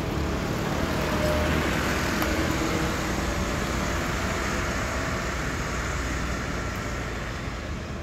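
Steady rumble of road traffic, fading slightly toward the end.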